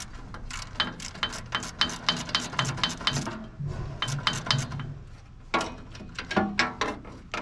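Ratchet wrench and socket clicking in quick strokes, about five clicks a second, as a bolt is backed out. The clicking pauses around the middle and starts again in the last two seconds.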